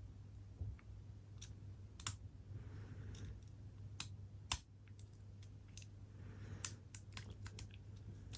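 Lock pick and tension wrench clicking irregularly in a Yale padlock's keyway as it is picked, with a few sharper clicks among small ticks, over a steady low hum. The pins are security pins giving counter-rotation.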